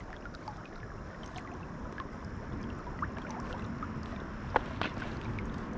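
Steady rush of the West Branch Delaware River's current, water lapping and flowing, with a few faint ticks and one sharper click about four and a half seconds in.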